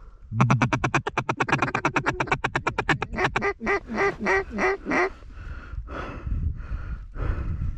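Mallard duck call blown in a fast feed chuckle, about a dozen notes a second for some two and a half seconds, then a run of separate quacks from about three seconds in, growing fainter after five seconds.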